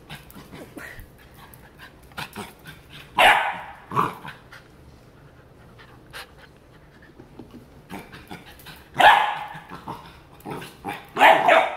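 Labrador puppy giving short, loud single barks: one about three seconds in, another a second later, one about nine seconds in, and two in quick succession near the end. It is barking at a new spiky toy that it is wary of.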